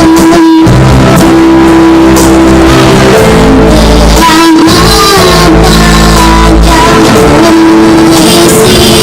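Loud song music: instrumental accompaniment with held notes and bass, and a singing voice.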